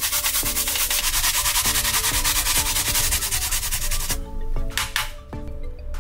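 Daikon radish being rubbed fast over a hand grater: rapid, even rasping strokes, about eight or nine a second, that stop about four seconds in, followed by one brief scrape.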